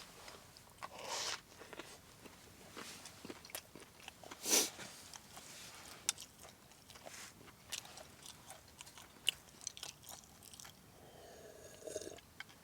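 A person eating close to the microphone: scattered small bites and chewing, with a few louder crunching bites about one and four and a half seconds in.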